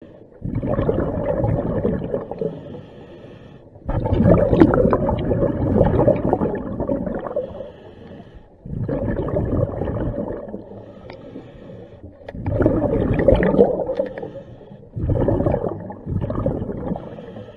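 Scuba diver breathing through a regulator, heard underwater: each breath out sends a gurgling rush of bubbles, in long bursts about every four seconds with quieter gaps between.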